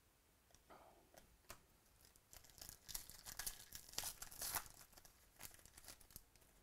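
Trading-card pack wrapper being torn open and crinkled by hand: a faint run of crackles and small clicks, loudest about three to four and a half seconds in.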